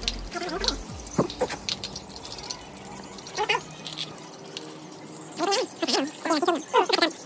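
People eating at a shared meal: chopsticks clicking on small china bowls and slurping sips from bowls, with short bits of low, mumbled talk that thicken near the end.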